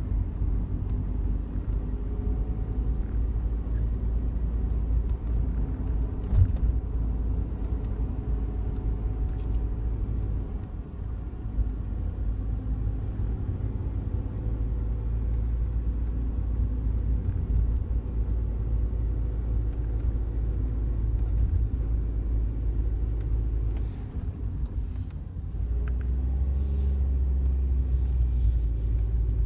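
Engine and road rumble inside the cabin of a Daihatsu Wake kei car on the move, with a few faint sharp ticks scattered through: the buzzing rattle from the front of the passenger side. Near the end the engine note grows louder.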